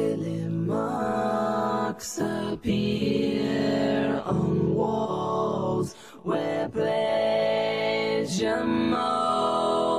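Background music: layered a cappella vocal chords, electronically harmonised, sung in held phrases that break every second or two, with sharp hissy consonants between them.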